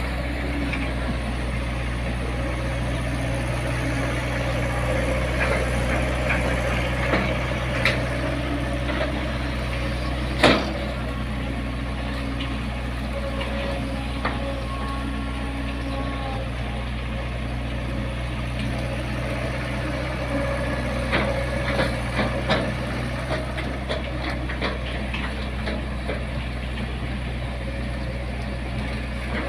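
Long-arm excavator's diesel engine running steadily, with scattered sharp knocks from the machine at work, the loudest about ten seconds in and a cluster about three-quarters of the way through.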